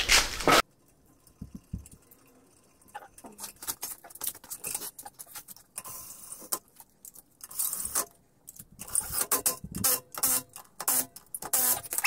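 Irregular metallic clicks and clatter of hand tools, growing busier in the second half.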